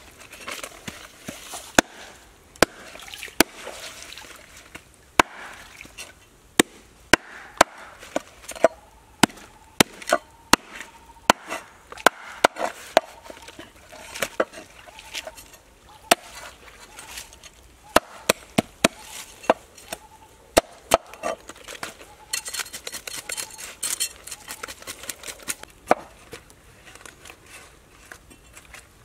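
Knife chopping and cutting a whole red fish on a wooden cutting board: irregular sharp knocks of the blade striking the board, with a few seconds of scraping about three quarters of the way through.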